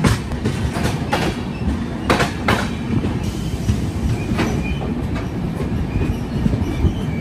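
Passenger train's wheels running on the track, heard close from an open coach door: a steady rumble broken by a few sharp clacks over the rail joints, the loudest around two seconds in.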